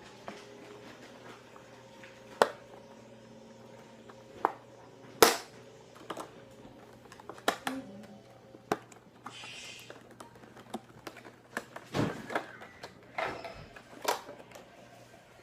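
Plastic and cardboard packaging of a 2x2 Rubik's cube being worked open by hand: scattered sharp clicks and snaps, the loudest about two and a half and five seconds in, with a brief rustle about ten seconds in.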